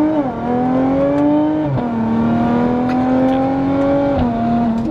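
Audi SQ5's supercharged 3.0-litre V6, on an Integrated Engineering dual-pulley tune, pulling hard at full throttle, heard from inside the cabin. The engine note climbs slowly and drops with quick automatic upshifts about a quarter second in, near two seconds and just past four seconds.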